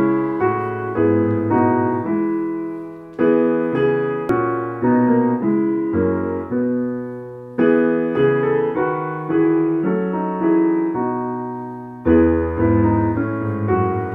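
Piano playing the hymn tune as an introduction: chords struck in a steady beat, each fading, in phrases that pause about three, seven and twelve seconds in.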